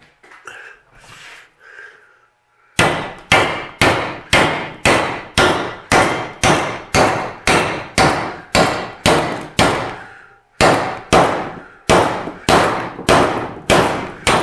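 Steady hammer blows on a steel sleeve, driving it into a new bushing in a VW trailing arm. The strikes come about two and a half a second, starting a few seconds in, with a brief pause about ten seconds in. Before them there is light handling of the parts.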